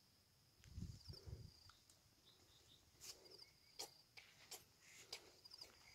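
Near silence with a faint, steady high-pitched insect chirring. A couple of soft low thumps come about a second in, and a few short clicks follow in the second half.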